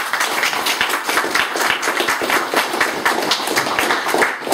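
A small group of people clapping their hands, a brief round of applause of many overlapping claps.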